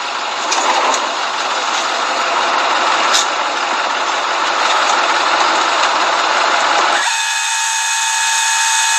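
Steady noisy hiss of police body-camera audio. About seven seconds in, the low rumble cuts out and a steady high-pitched tone with overtones holds for the last two seconds.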